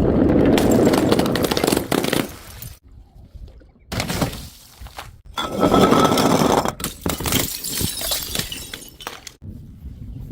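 Glass bottles smashing, with the crash and a dense clatter of breaking glass and shards in several separate bursts, each cut off abruptly.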